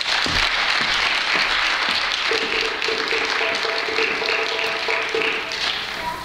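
Audience applauding after a reading, dying down a little near the end.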